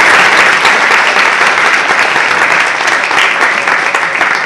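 Audience applause: loud, dense hand-clapping that tapers off slightly near the end.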